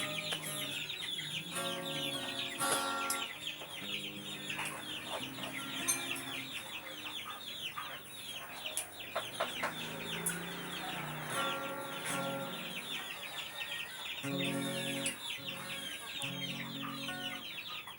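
Many chickens calling without a break, a dense chorus of short high cheeps and clucks. Snatches of music with held notes come in now and then, one a couple of seconds in and two more near the end.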